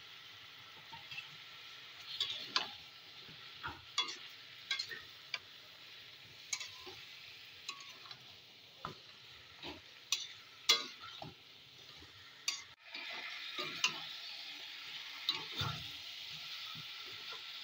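A spatula scraping and knocking irregularly against a wok as chicken, jackfruit and potato are stirred, over a steady sizzle of the pieces frying down in spices with a little water. The sizzle grows louder about two-thirds of the way in.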